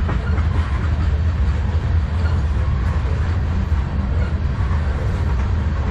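Freight train's covered hopper cars rolling past close by: a steady rumble of steel wheels on the rails.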